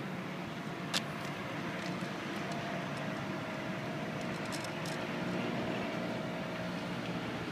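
Steady outdoor background noise with a faint steady hum through the middle, and a single sharp click about a second in.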